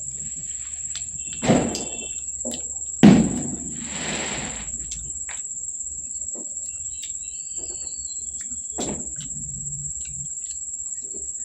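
Eating sounds: bites and chewing on a fried baingan chop (eggplant fritter), with two louder sudden crunches or knocks about one and a half and three seconds in. A steady high cricket trill runs underneath.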